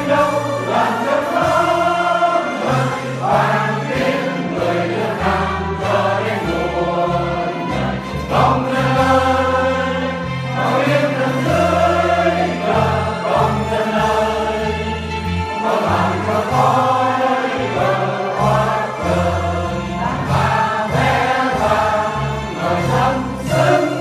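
A choir singing with instrumental accompaniment and a steady stepping bass line, in continuous phrases.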